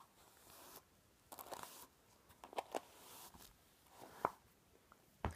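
A hairbrush drawn through long, damp hair: several faint, brief scratchy swishes, one stroke after another, with a few light ticks.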